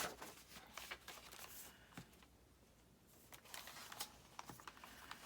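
Faint rustling and light taps of sheets of paper being picked up and laid down on a stack, with a near-silent pause in the middle.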